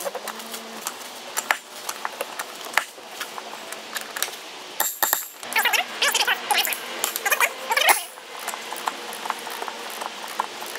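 Metal hand tools clicking and clinking against the metal parts of a sterndrive's trim and steering housing during disassembly, with a run of rapid clicks about five to eight seconds in.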